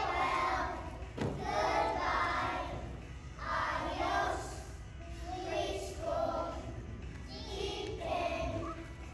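A group of young children singing a song together in short phrases of about a second each, with brief gaps between them.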